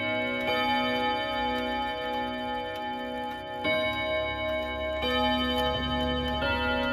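French ODO 36/8 wall clock's chime: its eight hammers strike eight long gong rods to play a slow melody. Notes fall a second or more apart and ring on long, so each overlaps the others in a lingering, melodious tone.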